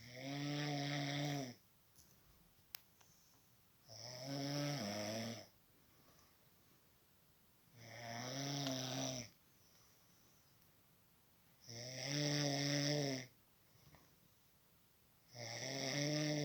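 Snoring: five long snores, evenly spaced about one every four seconds, each a low pitched drone with quiet breaths between.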